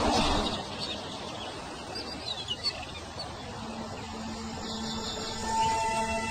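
Outdoor bush ambience with a few faint, short chirps a couple of seconds in, as soundtrack music fades out at the start and fades back in over the second half.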